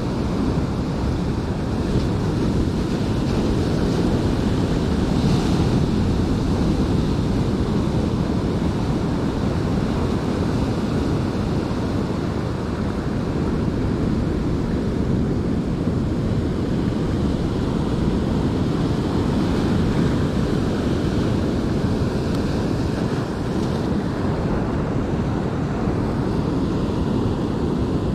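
Ocean surf breaking and washing over a rocky shore, a steady low rush of waves, with wind buffeting the microphone.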